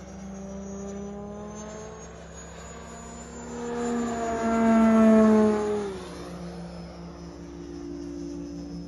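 Large electric RC aerobatic plane (Extreme Flight 104" Laser on a StinGR electric power system) flying: the motor and 28x13 Falcon propeller make a steady humming whine. It climbs in pitch and grows loud from about three and a half seconds in, peaks around five seconds, then drops sharply in pitch just before six seconds in.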